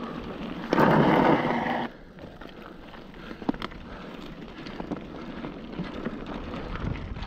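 Mountain bike riding on a dirt trail: tyres rolling on dirt, with scattered gravel ticks and small rattles from the bike. Near the start a loud, harsh noise lasts about a second and cuts off sharply.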